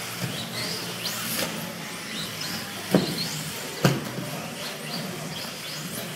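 Electric 1/10-scale Losi XXX-4 four-wheel-drive RC buggies racing: their motors whine up and down in pitch as they speed up and slow down. Two sharp knocks, about three and four seconds in, are the loudest sounds, as cars hit the track.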